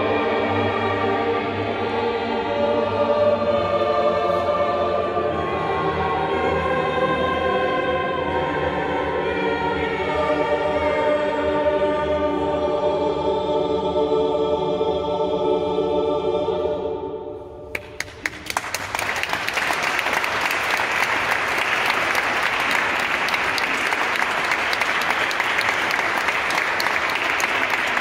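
Mixed choir singing a piece through to its final chord, which dies away about 17 seconds in. Audience applause follows and continues.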